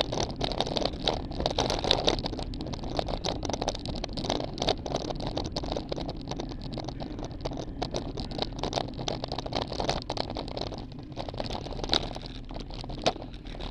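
Wind and road noise on a bicycle-mounted camera riding a paved road, with frequent sharp clicks and knocks. It grows quieter over the last few seconds as the bike slows.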